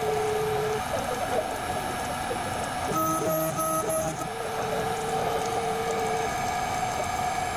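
Desktop CNC mill (DMC2 Mini) cutting a 304 stainless steel test piece: a steady machine whine with stepper-motor tones that switch on and off and change pitch in short steps as the axes move.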